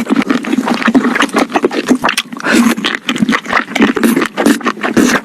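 Close-miked chewing and crunching of crispy fried chicken, a dense run of irregular crackles and crunches.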